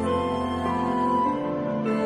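Slow, sad-sounding music with long held notes that change pitch in slow steps.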